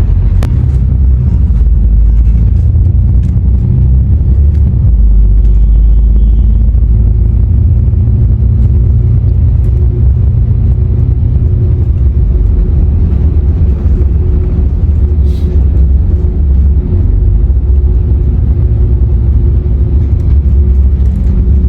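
An engine running steadily: a loud low rumble with a constant hum above it.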